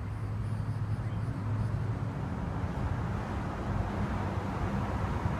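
A car engine idling: a steady low hum.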